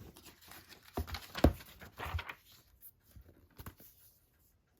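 Handling of paper envelopes and card packaging: light rustling with a few soft knocks. The loudest knock comes about one and a half seconds in.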